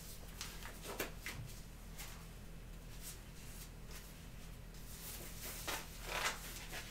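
Nitrile gloves being pulled onto the hands: faint rustles with a few brief snaps, the clearest about a second in and near the end, over a steady low hum.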